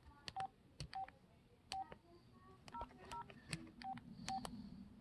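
Keys pressed one at a time on an old cell phone keypad, each press giving a click and a short keypad beep, about seven presses at an uneven pace.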